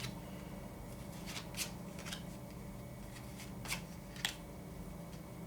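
Tarot cards being handled: a few soft card clicks and slides over a faint steady hum, with two sharper snaps near the end.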